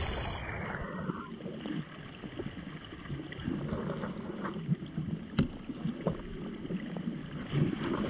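Shallow river water sloshing and splashing around a person's legs as they wade across it. There is one sharp click about five seconds in.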